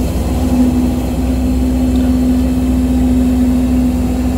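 Aircraft lavatory toilet flushing: water swirling around the stainless steel bowl, with a loud steady hum.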